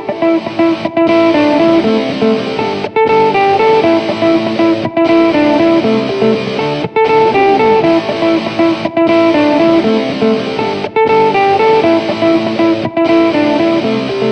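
Background music: an instrumental led by a plucked guitar melody, with short regular breaks about every two seconds.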